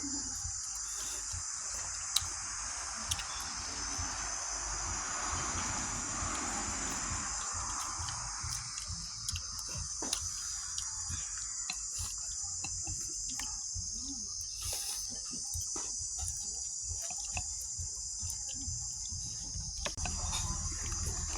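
Insects chirring steadily in the background as a continuous high-pitched drone, with a few sharp clicks now and then.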